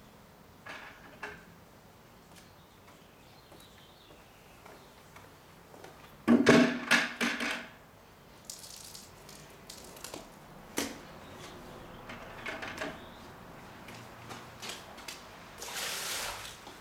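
Hand car washing with a plastic bucket and sponge: scattered knocks and water noises, with a loud clatter about six seconds in. Near the end, a splash as a bucket of soapy water is poured over a wheel and onto the wet pavement.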